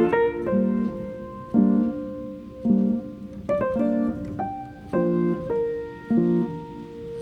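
Background music: piano chords struck in a steady pattern, with guitar in the surrounding passage.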